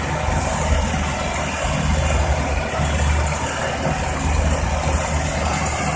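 Heavy diesel engine of earthmoving machinery running steadily at an even speed.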